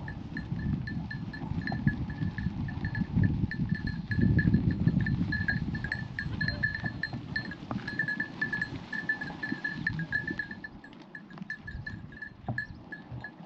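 A goat's bell clinking rapidly and unevenly, a single pitch struck over and over as the goat moves, over a low rumbling noise that is strongest about four seconds in and fades after about ten seconds.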